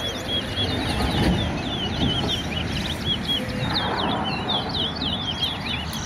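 Caged male towa-towa (large-billed seed finches) singing in a song race: quick, continuous runs of short, sharp whistled notes and chirps, over a steady murmur of background noise.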